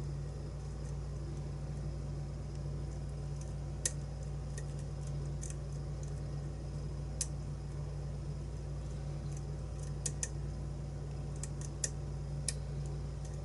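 Lock pick and tension tool working the pins of a Schlage-based challenge lock: sparse, sharp little metallic clicks and ticks at irregular intervals, over a steady low hum.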